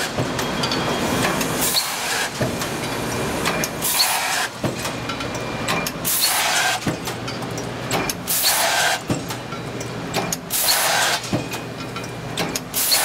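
Cold forging press with automatic transfer running through its cycles: a broad rush of noise repeats a little over every two seconds, with sharp clicks and clanks between, over a steady machine hum.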